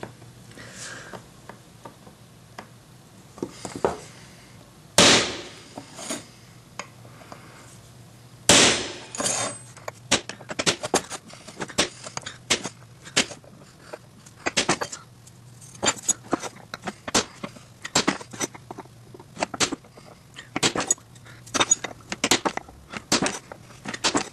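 A center punch being struck into marked hole locations on flat bar stock, enlarging the punch divots to guide a drill bit. A few strong strikes about five and eight seconds in, then a long run of quick, sharp taps.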